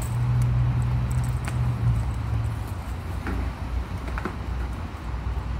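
Scattered clicks and rustles of firefighter turnout gear, SCBA face mask and helmet being handled with gloved hands. These sit over a steady low hum that fades out a little under three seconds in.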